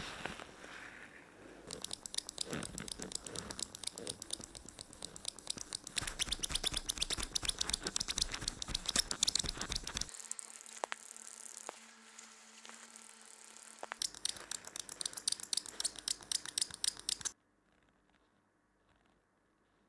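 Quick, rhythmic scratchy rubbing strokes of a dog's canine tooth being hand-polished against an abrasive pad. It pauses briefly about ten seconds in, resumes, and stops suddenly near the end.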